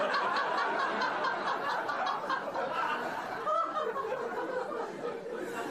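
A crowd laughing together, easing off slightly toward the end.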